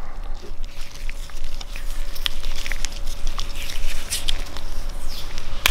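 Light clicks and scratching of small Vanos parts and electrical tape being handled, with scattered irregular ticks and a faint steady hum.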